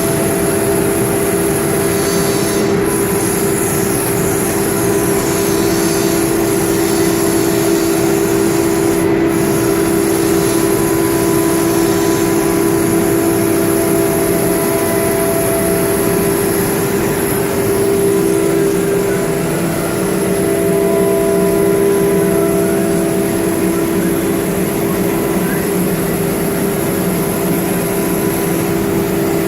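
BCAM CNC router running steadily, with a constant whine and a high whistle above it.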